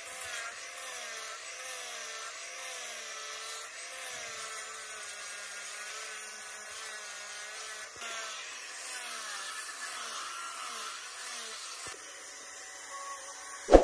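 Electric angle grinder with a sanding disc sanding a buffalo horn, its motor whine wavering up and down in pitch. It stops near the end, and a sharp click comes right at the close.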